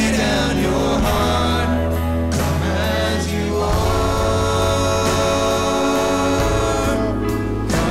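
Church choir singing a hymn with instrumental accompaniment: long held chords over a steady bass note.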